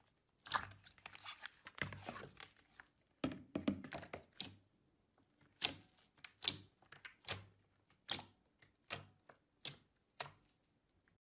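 Glossy slime being squeezed and kneaded by hand, then pressed and poked flat on a table: wet squelches, then a run of sharp sticky clicks and pops as the fingers press and lift, about one or two a second in the second half.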